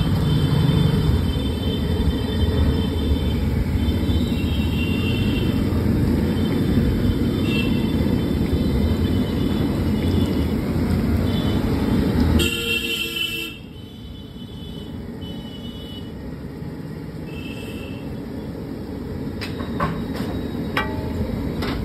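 Roadside street noise with passing traffic and repeated short vehicle horn toots, with a loud honk a little past halfway, after which the noise drops quieter. Ghee sizzling under potato tikkis on a large flat griddle, with a few sharp clicks of a metal spatula near the end.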